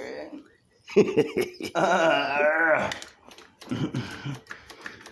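A man's wordless voice: a drawn-out vocal sound about two seconds in and a shorter one near the end, with a few sharp clicks of handling just before the long one.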